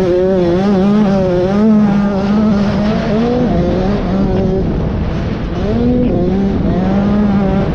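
KTM 85 two-stroke motocross bike engine running hard under load, its pitch rising and falling with the throttle and dropping sharply about three seconds in before climbing again near the end.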